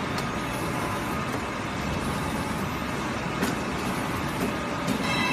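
CNC servo pipe-bending machine running as it bends a metal pipe: a steady machine noise with a few faint clicks.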